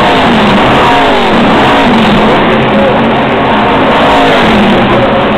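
Stock Car Brasil race cars passing at full speed one after another, each engine note dropping in pitch as the car goes by.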